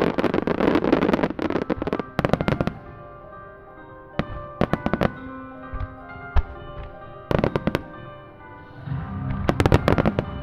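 Starmine aerial firework shells by Nomura Fireworks bursting in rapid clusters: a dense run of bangs in the first two to three seconds, a few short groups around the middle, and another volley near the end. The display's accompanying music plays steadily underneath.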